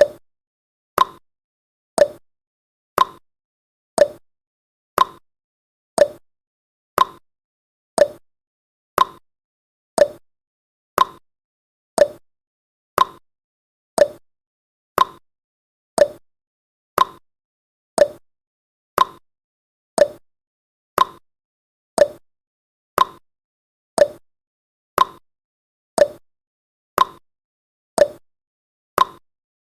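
Countdown timer's sound effect: a short, sharp tick once every second, evenly spaced, with silence between the ticks.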